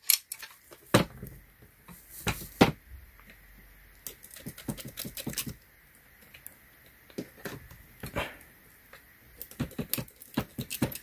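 Irregular metal clicks and knocks from The Club steering wheel lock being handled, its locking bar sliding and ratcheting shut.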